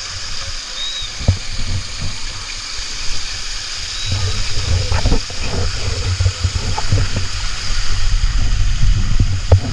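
Water rushing down an open plastic water slide, a steady hiss, with low rumbling and knocks that grow louder from about four seconds in.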